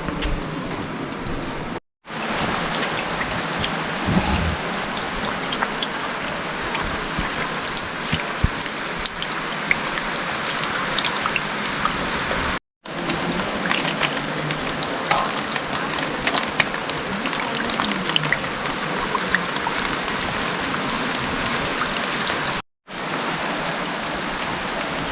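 Steady rain falling, an even hiss with scattered drop ticks, broken by three brief silences.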